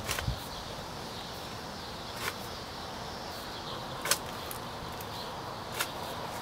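Steel shovel blade scraping and digging into loose soil, four short strokes about two seconds apart, as dirt is shoveled back into a small hole.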